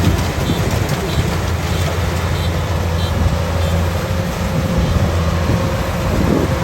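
Rice combine harvester's diesel engine running steadily under load while cutting, a loud continuous low drone with the rattle of the machine over it.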